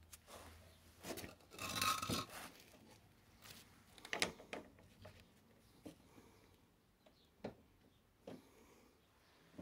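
Faint handling noises: a brief rubbing scrape about two seconds in, then scattered clicks and taps.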